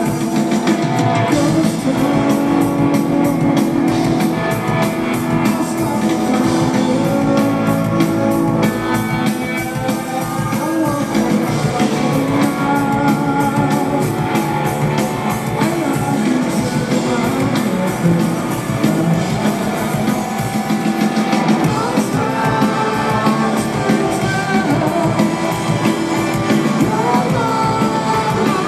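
A rock power trio playing live: lead vocals over electric guitar, bass guitar and a drum kit, heard from within the audience.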